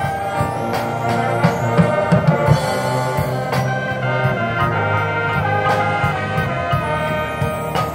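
High school marching band playing: held brass chords over drums and front-ensemble percussion, with a cluster of louder drum hits about two seconds in.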